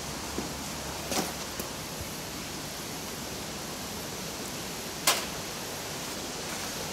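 Metal skimmer knocking against a steel tray as dross is skimmed off molten brass in a crucible: a small knock about a second in and a sharper metallic click about five seconds in, over a steady rushing noise.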